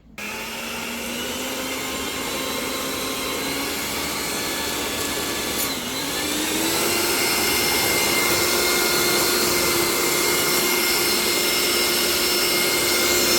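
Electric hand mixer switching on and running steadily as it beats cream, its motor whine stepping up to a higher speed about six seconds in.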